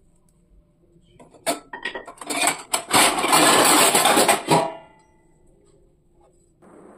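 Kitchen clatter of steel utensils: a few clicks and knocks, then about two seconds of loud rattling and scraping that stops abruptly. A low steady hiss starts near the end.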